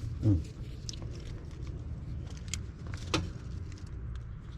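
A few sharp clicks and taps of meter leads and hand tools being handled at a heat pump's contactor during a power check, over a steady low rumble.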